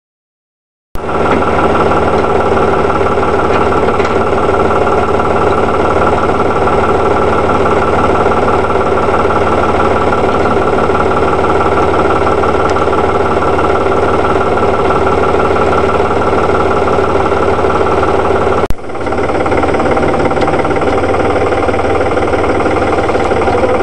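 Tractor engine idling steadily. It starts abruptly about a second in, breaks off sharply about three-quarters of the way through, and resumes at once with a slightly different tone.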